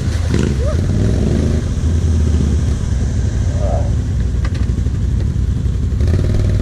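ATV engine running at a steady idle.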